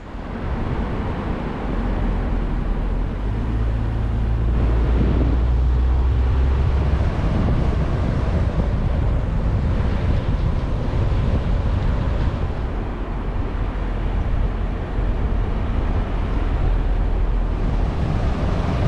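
Car driving: steady engine and road noise, with a low engine hum that is strongest for the first several seconds.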